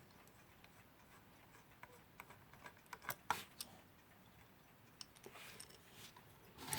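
Faint, scattered small clicks and light scrapes of a screwdriver and small screws being worked as a screw on a 1947 Timlec Lectolarm alarm clock is undone and refitted.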